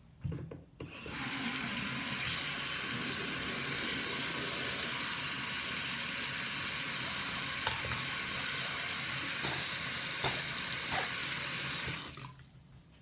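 Bathroom sink tap running steadily into the basin, turned on about a second in and off near the end, with a few light clicks under the flow.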